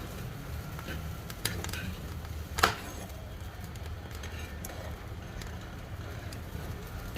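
Wood fire crackling in a wood-burning cookstove: a steady low rumble under scattered small pops, with one loud sharp crack about two and a half seconds in.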